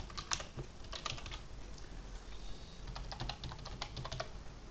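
Typing on a computer keyboard: quick runs of key clicks, pausing for about a second midway before a second run.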